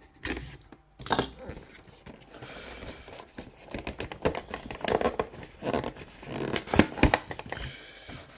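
An action figure's packaging being opened and handled: cardboard and plastic rustling, tearing and scraping, with several sharp clicks and snaps.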